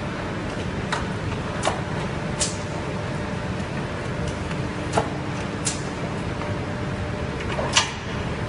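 Factory conveyor line for ceramic toilets running, with a steady mechanical hum and a handful of sharp clacks at irregular intervals, the loudest near the end.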